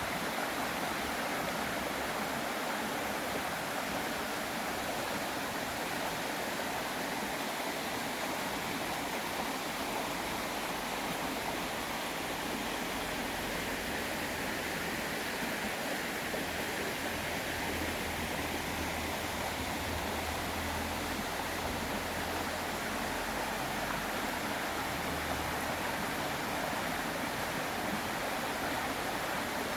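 Clear mountain valley stream rushing steadily over rocks. A faint low rumble joins it from about twelve to twenty-six seconds in.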